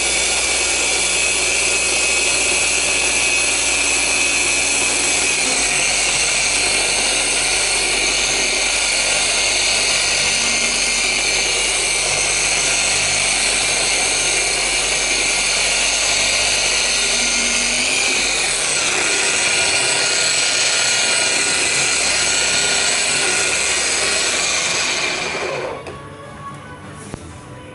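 Rupes LHR 15 dual-action random-orbital polisher running steadily with its foam pad on car paint during paint correction. Its tone shifts about two-thirds of the way in, and it stops near the end.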